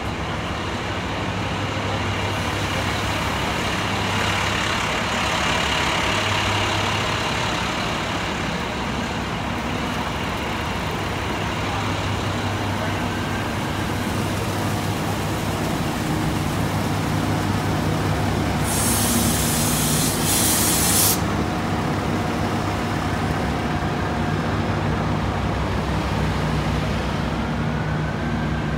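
Diesel engines of parked FDNY fire trucks running steadily at the fire scene. A loud hiss of released air, like an air brake, comes about two-thirds of the way through and lasts about two seconds.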